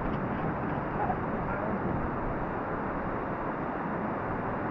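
Steady rushing of water flowing through a large cave: an even noise without breaks or changes.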